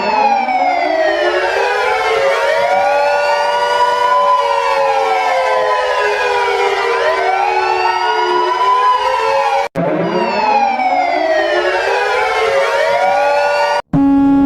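Several sirens wail together, their pitches sweeping up and down and crossing one another. The sound cuts out for an instant about ten seconds in and the same wail starts over. Near the end it cuts again and a steady alarm tone begins.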